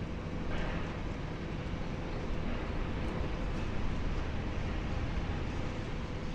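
Steady low drone of a demolition excavator's diesel engine running as it works on the building.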